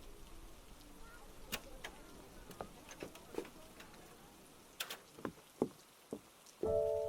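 Scattered light clicks and taps over a faint hiss, then near the end a chime struck once, ringing on with several steady tones.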